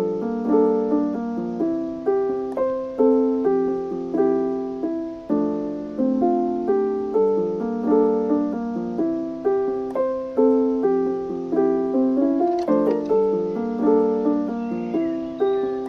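Background music: a gentle piano melody played as a steady run of struck notes with chords beneath.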